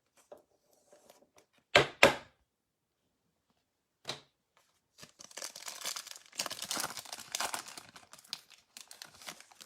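A trading card pack wrapper being torn open and crinkled: two sharp sounds about two seconds in, a shorter one near four seconds, then several seconds of crinkling and tearing.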